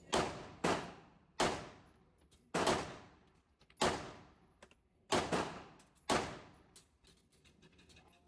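About seven pistol shots fired at an uneven pace, each a sharp crack with a long trailing echo.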